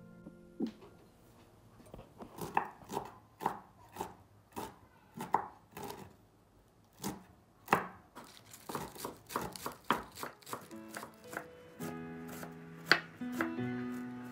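Kitchen knife chopping on a wooden cutting board, first through wood ear mushroom and then red onion: sharp, irregular knocks of the blade on the board, two or three a second. Soft music comes in about two thirds of the way through.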